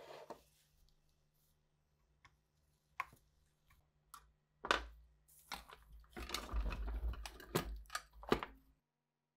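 Gloved hands handling a rusty old vacuum-tube chassis on a wooden table: a few separate knocks of the metal against the wood, then several seconds of crunchy rustling and scraping as debris shifts, cutting off suddenly near the end.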